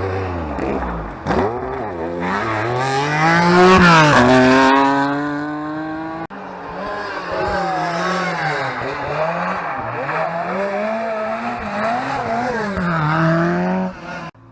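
Historic rally car engine at full throttle: the pitch falls, then climbs to a loud high note about four seconds in and holds. After an abrupt break about six seconds in, an engine runs hard again, its pitch rising and falling over and over as it revs through the gears and lifts.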